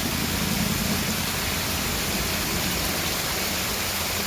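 Steady rushing of water at a clogged lake drain that is full and backing up.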